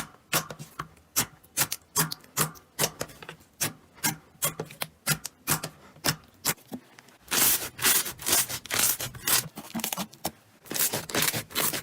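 Slime being squished and poked by hand, making a run of sharp clicks and pops, about two or three a second, that turns into denser crackling about seven seconds in.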